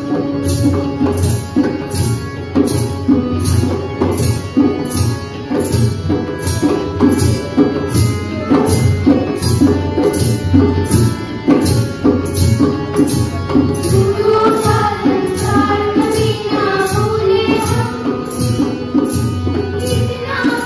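Group song with drum and jingle percussion keeping an even beat of about two strokes a second; the singing voices stand out more clearly in the last few seconds.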